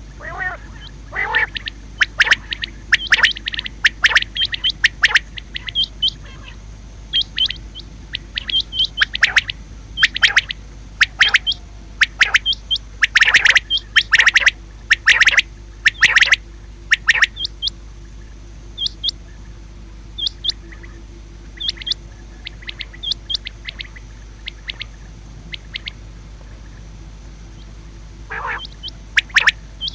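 Female common quail calling: short, sharp calls repeated singly and in quick clusters, thickest in the first half and thinning out later, over a steady low hum.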